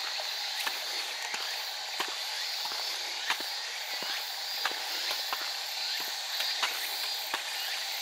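Footsteps on a paved path at an even walking pace, about three steps every two seconds, over a steady high-pitched chorus of insects.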